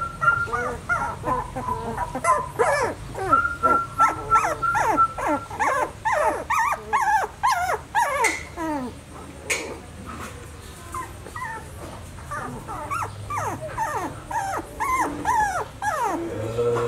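A litter of young puppies whining and yelping over one another in many short, high cries. The cries thin out for a few seconds past the middle, then pick up again.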